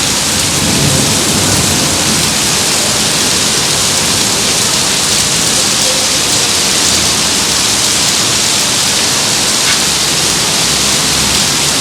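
Rain falling steadily, a dense even hiss with no break.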